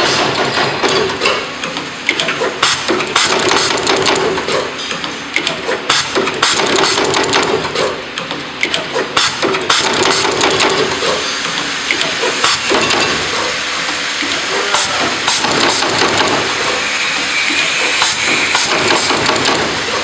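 Automatic wire stripping, twisting and soldering machine running, its mechanism clacking and knocking rapidly and irregularly, with air hissing that grows steadier near the end.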